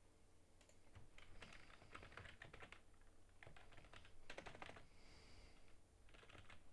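Computer keyboard being typed on in several short bursts of quick keystrokes with pauses between them, faint.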